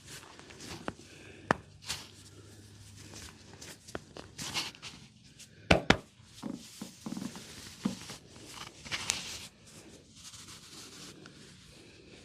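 Barber's hands massaging a person's head and ears: soft rubbing and swishing against skin and hair with many small clicks and taps, and two sharp loud cracks in quick succession about six seconds in.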